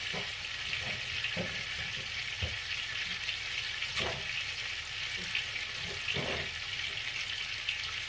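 Two beef steaks frying in a pan: a steady sizzle with scattered pops of spitting fat.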